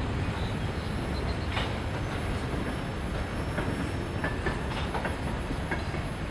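Freight train rolling past a grade crossing: steady wheel-and-rail rumble with occasional sharp clicks, slowly fading as the last car moves off.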